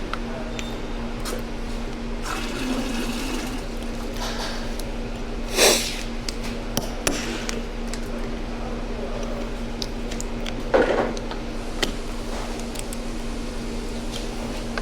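Steady workshop hum under a hiss, with scattered light clicks of hand tools being handled and two short, louder clanks about six and eleven seconds in.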